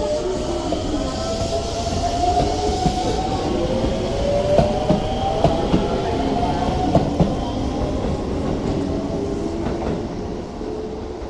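Hokuso Railway electric commuter train pulling out of the station. The traction motors whine in several tones that slowly rise in pitch as it gathers speed, and the wheels clack sharply over rail joints around the middle. The sound falls away near the end as the last car leaves.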